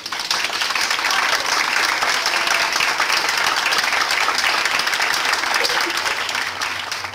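Audience applauding steadily with dense hand clapping that tapers off near the end.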